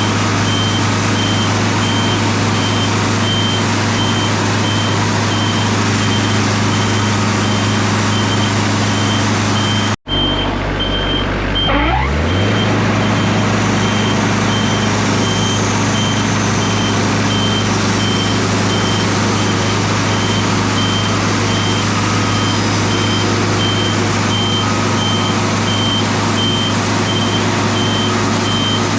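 Wood-Mizer LT40 Super Hydraulic bandsaw mill running, its engine giving a loud, steady hum under a high beep that pulses on and off throughout. About a third of the way in the sound cuts out for an instant, then the engine comes back rising in pitch.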